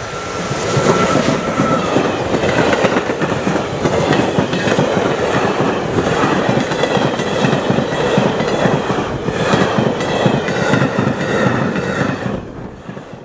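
Container freight train hauled by a DB Class 189 electric locomotive passing close at speed: a loud, dense clatter of wagon wheels over the rail joints. It drops away quickly near the end.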